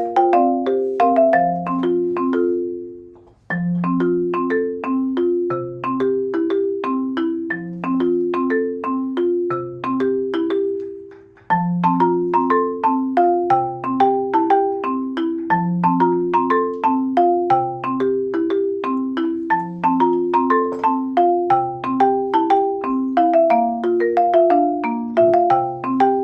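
Background music: a light mallet-percussion tune of quick struck notes over a low bass line. It fades out and abruptly starts again twice, about three and a half seconds in and again about eleven seconds in.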